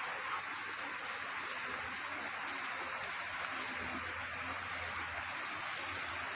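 Steady rushing of water flowing from a natural spring.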